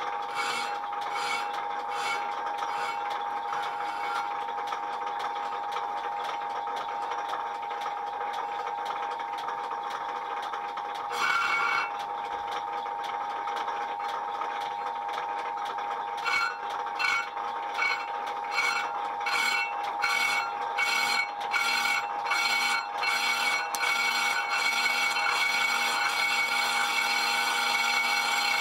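An old South Bend lathe runs with a steady whine while its tool skims the face of a cast-iron brake disc. The cut makes a scraping hiss that comes and goes in pulses about twice a second near the start and again from about 16 to 24 seconds in, with a brief louder flare around 11 seconds in.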